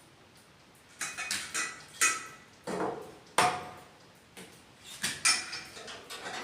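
Kitchenware being handled: an uneven string of about ten clinks and knocks starting about a second in, several with a short ringing tone like crockery struck lightly.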